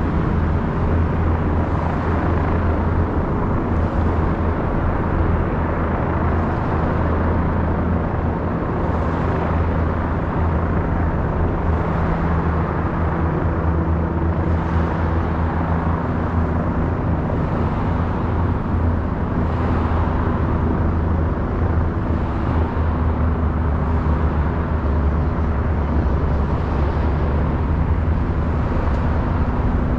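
Steady road traffic noise from cars driving past on a multi-lane highway, with a constant low hum underneath.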